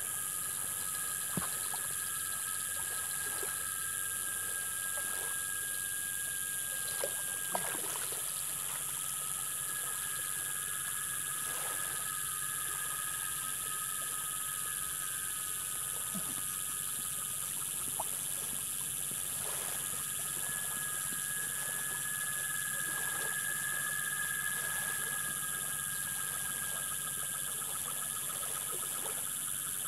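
Evening chorus of insects and frogs: a steady high buzz with two constant trilling tones, and short falling calls every second or two.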